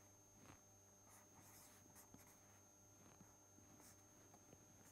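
Faint scratching of a felt-tip marker on paper, short irregular strokes as lines are drawn, over a steady low electrical hum and a thin high whine.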